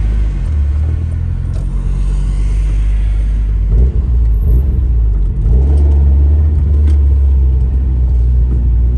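Nissan Pulsar GTi-R's turbocharged four-cylinder engine and exhaust heard from inside the cabin, a steady low drone at low revs while moving slowly. The sound dips briefly about four seconds in and again about five and a half seconds in, then the drone comes back stronger.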